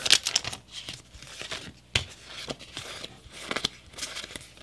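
Foil Pokémon booster-pack wrapper crinkling and trading cards being handled and slid against each other, a run of irregular rustles and sharp snaps.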